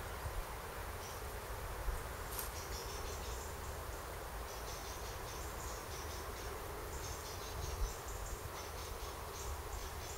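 Insects chirping in short, repeated high bursts, with a low rumble and two brief bumps on the microphone.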